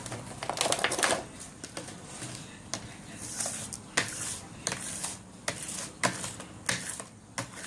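Irregular clicks and taps of small plastic sand tools and a mold handled in kinetic sand, with a brief burst of scraping and clatter about a second in.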